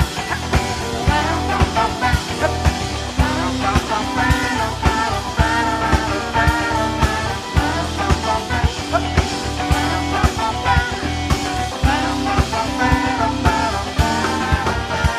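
A live band playing an upbeat rock/ska-style song with a steady drum-kit beat, bass, electric guitar, keyboard and a trumpet-and-saxophone horn section, with a male voice singing.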